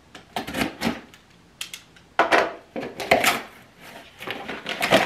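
Cardboard shipping box being cut and torn open, its flaps pulled back: a series of short scraping, rustling bursts of cardboard, louder from about two seconds in.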